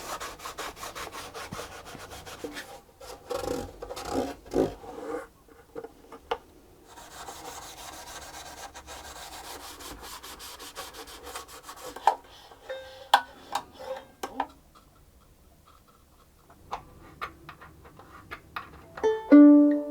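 Rubbing on the violin's wooden body in quick repeated strokes for about twelve seconds, as the instrument is cleaned by hand. Then come scattered light knocks and a few short plucked notes, and near the end plucked violin strings ring clearly as the newly strung instrument is brought up to pitch.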